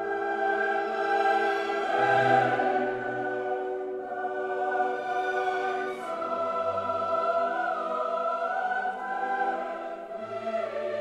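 Background music: a choir singing long held chords over low sustained notes, the chord changing every couple of seconds.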